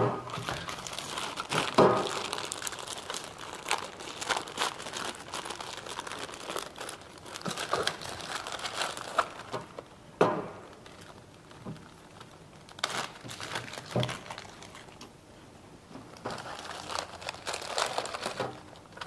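Plastic bags crinkling and rustling as a packaged oil-sampling kit is unwrapped by hand, with bursts of crackle, some tearing, and a few short knocks.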